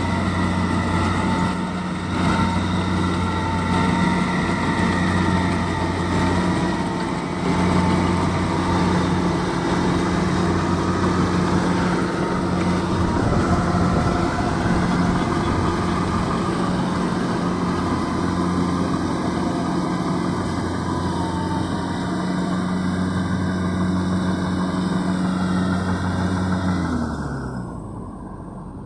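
Kubota DC-70 combine harvester's diesel engine and machinery running steadily, with a wavering whine above the engine note. Near the end the engine pitch drops and the sound falls away.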